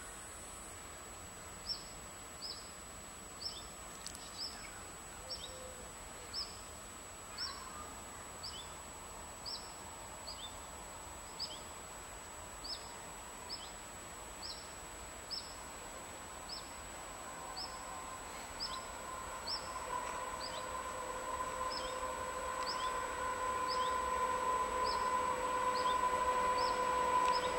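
A small bird repeats a short high chirp about once a second. From about two-thirds of the way in, an approaching DB class 245 diesel locomotive with double-deck coaches rises over it: a steady engine drone that grows louder towards the end.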